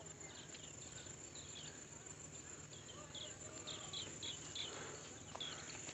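Faint steady high-pitched trilling of crickets at dusk, with a scattering of short, falling high chirps over it, most of them near the middle and end.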